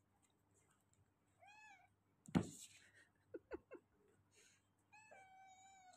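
Cat meowing twice: a short meow about a second and a half in, then a longer, drawn-out meow near the end. Between them comes a sharp thump, the loudest sound, followed by a few light taps.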